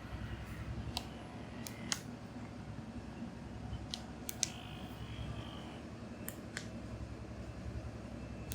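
Hands massaging the shoulders and back, giving a scattered run of short sharp clicks and small snaps over a steady low hum.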